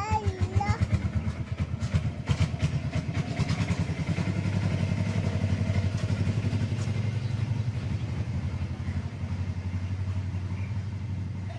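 An engine running steadily with a low, pulsing rumble, with clattering clicks over the first few seconds.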